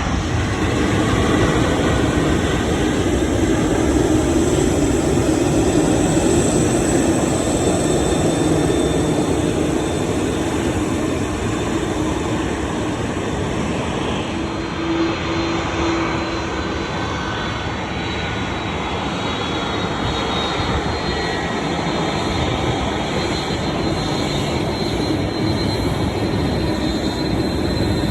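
Jet airliner engines: a loud, steady rush of jet noise with a faint whine, swelling a little early on and easing slightly in the middle.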